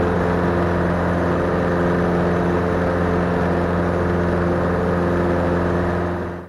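Diamond DA40 single-engine piston airplane's engine and propeller running at a steady drone, heard from inside the cockpit as the plane climbs away from the runway. The sound fades out abruptly right at the end.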